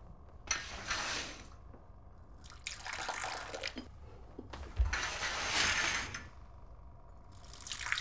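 Tea poured from a teapot into porcelain cups on saucers: four separate pours of about a second each, liquid splashing into one cup after another.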